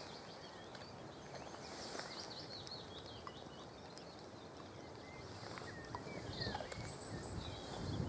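Faint birdsong, quick high chirps and twitters from small birds, over a steady outdoor hiss.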